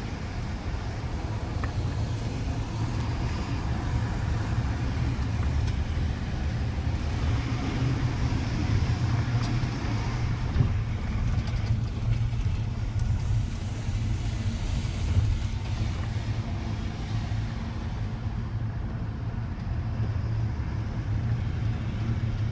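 Ford F-150 pickup's engine running with a steady low rumble, heard from inside the cab, with a couple of brief knocks about halfway through.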